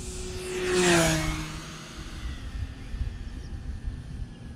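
Electric RC warbird (1.2 m P-51D Mustang with a brushless motor on a 4S LiPo) making a low fly-by: the motor and propeller buzz swells to a peak about a second in and drops in pitch as it passes, then fades to a fainter steady hum.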